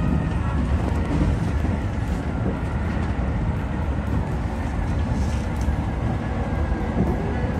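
Keio Line electric commuter train running at speed, heard from inside behind the cab: a steady rumble of wheels on the track with faint steady motor tones above it.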